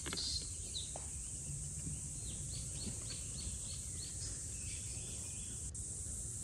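Forest ambience: a steady high insect drone, with a bird calling a quick run of short falling notes, about three a second, for a couple of seconds in the middle, over a low rumble.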